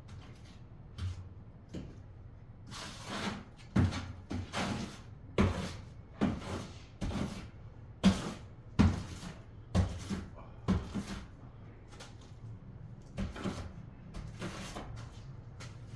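A series of irregular knocks and clacks, about a dozen, some sharp and loud, with scraping and handling noise between them.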